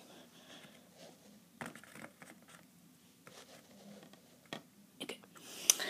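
Small plastic toy figures being handled and set down, with a few light clicks and taps spread out and faint rustling between them.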